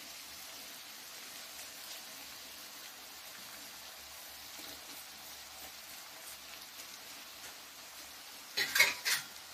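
Soft steady sizzle of potato-onion masala cooking in a kadhai. Near the end come three sharp knocks of a steel spoon against the pan.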